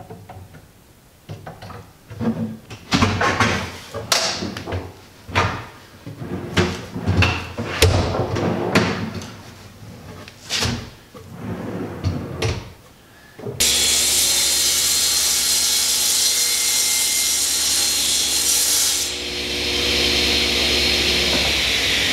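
A wooden drawer on ball-bearing side-mount drawer slides is pulled out and pushed shut several times, each stroke a sliding rumble with clicks. About thirteen seconds in, a table saw cuts in suddenly, running steadily and loudly.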